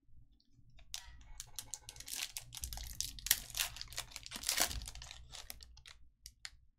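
Foil trading card pack crinkling as it is torn open by hand, a dense run of crackling from about a second in, thinning to a few separate crinkles near the end.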